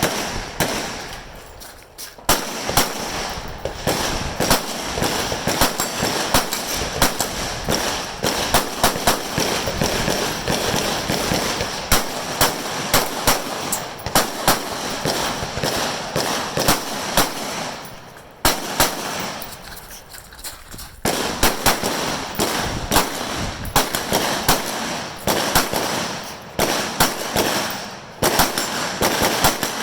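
Rifle fire from many shooters on a firing line: sharp shots in quick, irregular succession, often overlapping, with a short lull about two seconds in and a longer lull past the middle.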